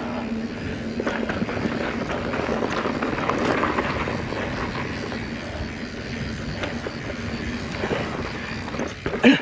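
Mountain bike riding over a rough dirt trail: steady tyre and riding noise with many small clicks and rattles, and one sharp knock near the end.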